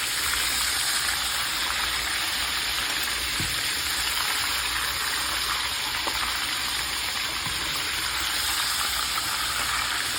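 Breaded cubed steaks frying in hot oil in a skillet: a steady, dense sizzle.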